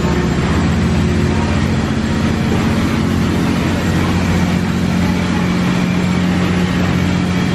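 Engine-room machinery of the steam sternwheeler Natchez running: a loud, steady mechanical din with a constant low hum, heard from inside the engine room.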